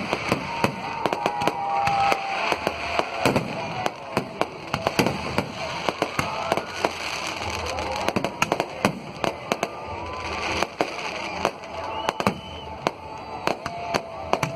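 Diwali firecrackers and fireworks going off: many sharp bangs and pops in quick, irregular succession.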